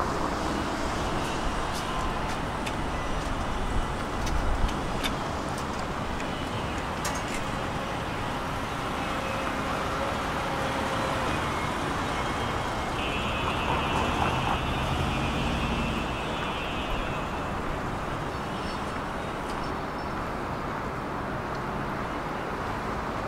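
Steady city road traffic noise: cars and other vehicles running along the street. A high-pitched tone rises out of it for about four seconds midway.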